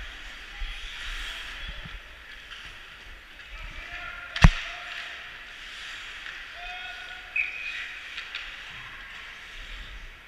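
Ice hockey play echoing through an ice rink: hubbub with scattered shouts, and a single loud, sharp crack about four and a half seconds in, with a smaller knock a few seconds later.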